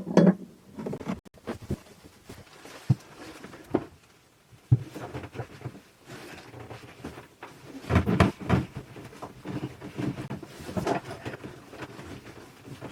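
A spanner working on a boat's seacock and skin fitting: scattered sharp knocks and clicks of metal tool on fitting, with a busier stretch of clattering about eight seconds in and again near ten seconds.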